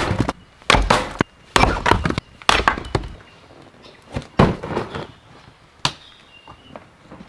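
Firewood being chopped: a series of irregular sharp strikes, several in quick succession in the first three seconds, then a few more spaced out.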